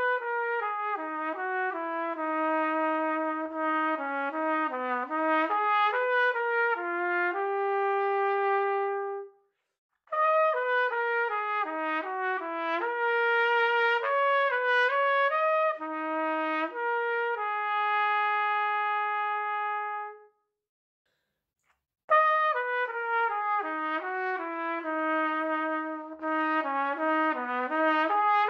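Unaccompanied trumpet playing a melodic passage in three phrases with short breaks. The first two are on a 1950 Conn 12B with a copper bell. After a pause about two-thirds through, the same opening phrase is played again on a modern silver-plated Conn 1B-46.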